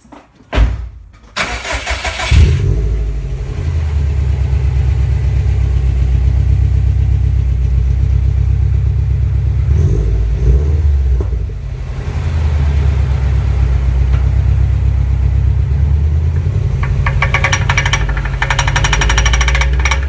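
Car engine cranking and catching, then running steadily. A fast rattle joins in near the end.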